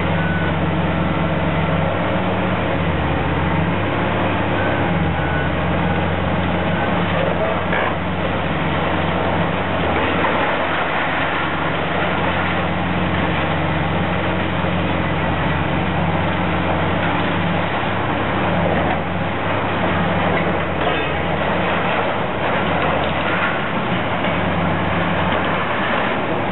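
Demolition excavator's diesel engine running steadily under load, its drone dipping and rising a little in pitch, with scattered crunches and clatter of debris breaking away.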